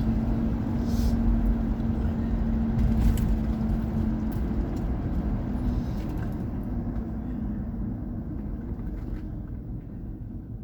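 Car running: a steady low engine and road rumble with a hum that fades about halfway through, the whole sound growing gradually quieter toward the end.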